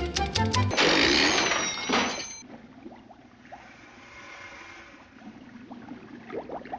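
Comedy sound effect: a loud motorised whir with a high whine, lasting under two seconds, then fading to a quieter hiss. Film music plays briefly before it and comes back near the end.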